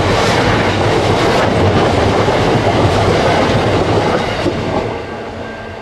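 Train of bogie grain hopper wagons rolling past, steel wheels running over the rails. The noise drops away about five seconds in as the last wagon goes by.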